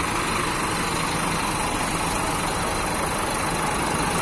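Parked coach's diesel engine idling steadily.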